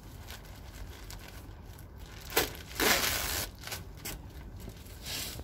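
A large black plastic bag rustling and crinkling as it is handled, in short bursts: a quick crinkle about two and a half seconds in, a longer rustle for about a second right after, and another near the end.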